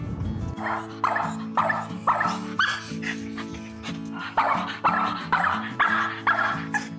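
A French bulldog barking over and over in short, sharp barks, about two a second, starting about half a second in, over background music.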